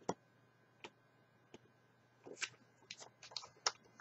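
Thin origami paper being folded and creased by hand against a paper-covered table: sparse crisp rustles and taps, a few widely spaced at first, then a quicker run of them in the last second and a half.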